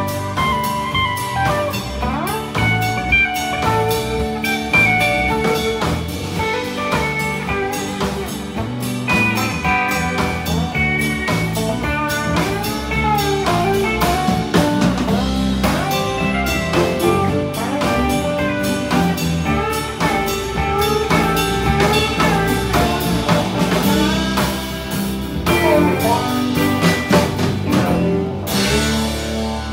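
Live country band playing an instrumental break with no singing: a Telecaster-style electric guitar with bending lead notes over strummed acoustic guitar and a drum kit, and a fiddle with the band near the end.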